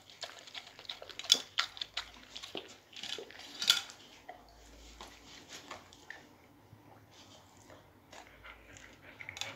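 A dog licking food off a china plate: quick wet laps of the tongue with small clinks and knocks of the plate. The sounds come thick through the first four seconds or so, then thin out to a few faint ticks.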